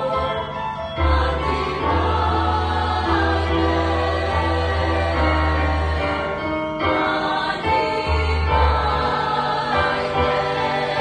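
Mixed church choir singing a hymn in parts, with an accompaniment carrying low bass notes that change every second or few.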